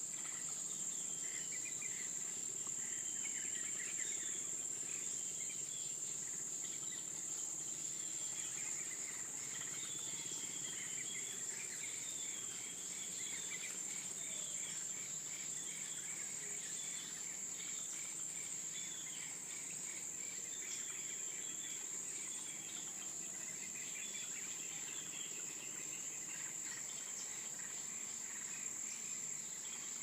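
Forest insects droning steadily at a high pitch, with scattered, repeated chirping calls lower down.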